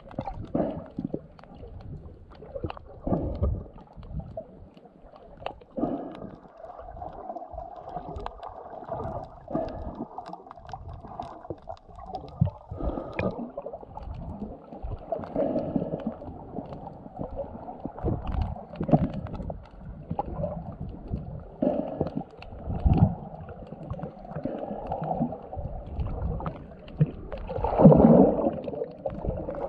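Water sloshing and gurgling, heard underwater through an action camera's waterproof housing, with irregular dull thumps. It swells loudest near the end.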